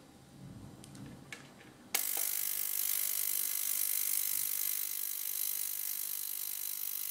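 A few light handling knocks, then about two seconds in an ultrasonic cleaner switches on and runs with a steady high-pitched buzzing hiss. Its water bath is working dirt off a diesel injector nozzle in a visible cloud.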